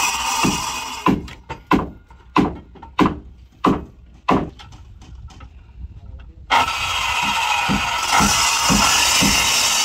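Hammer blows nailing planks on a wooden boat hull, a run of sharp separate strikes about two a second. A power tool runs loudly over the hammering for the first second, stops, and starts again about six and a half seconds in.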